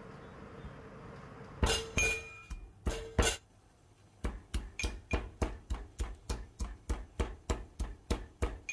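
Metal pestle pounding ginger, green cardamom and cloves in a metal mortar. A few separate clinking strikes with a short metallic ring begin about a second and a half in, then after a brief pause comes steady pounding at about four strikes a second.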